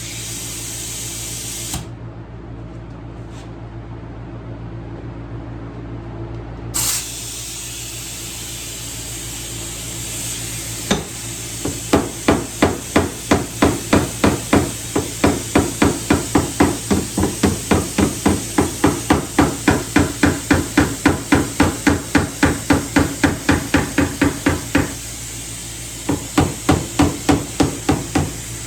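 Body hammer tapping on a car door's sheet metal in fast, even light blows, about four a second, in one long run, then a short pause and another run: knocking down the high spots around a dent while it is pulled out with a suction-cup puller. A steady hiss and hum sit under it.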